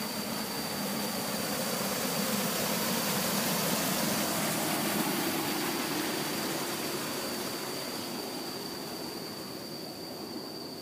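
An engine running, growing louder for a few seconds and then fading, over a steady high-pitched whine.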